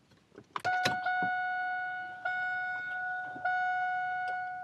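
A few clicks, then the dashboard warning chime of a 1997–2002 Chevrolet Camaro starts about half a second in: one steady ding repeated roughly once a second, each fading a little before the next.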